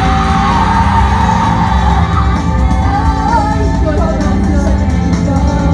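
Loud live pop music in a concert venue: female voices sing a wavering melody over heavily amplified backing music with a steady bass.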